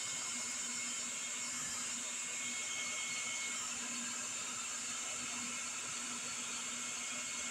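Portland 3-in-1 electric leaf blower running steadily with its nozzle pressed into a 3-inch PVC conduit, blowing a rope-tied slug of shopping bags through the pipe. It makes an even rushing hiss with a faint steady hum under it.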